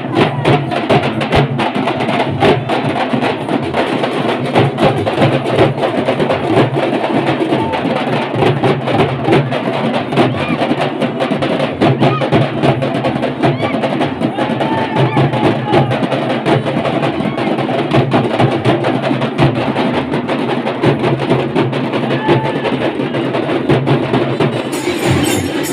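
A group of large frame drums beaten with sticks in a fast, steady, driving rhythm, with crowd voices beneath.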